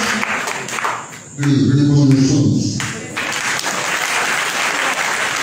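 Crowd applauding. A man's voice comes through the microphone for about a second and a half near the middle, and the clapping carries on around it.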